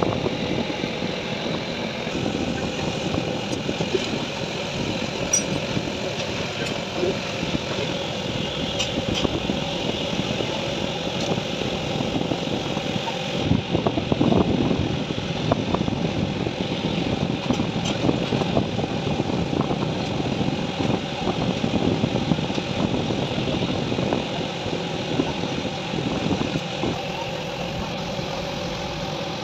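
A cloth rag scrubbing and wiping a plastic battery case, a dense irregular scratchy rubbing that peaks about halfway through, over a steady mechanical running noise.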